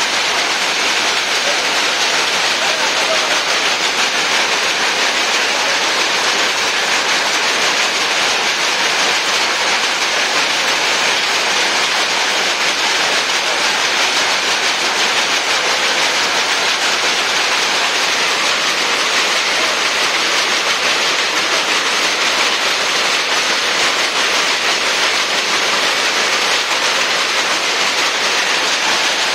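A shed full of power looms all running at once: a loud, steady, dense mechanical clatter with no pauses.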